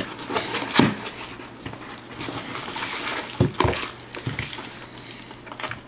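Cardboard shipping box being opened and its contents pulled out by hand: rustling and scraping, with a few sharp knocks.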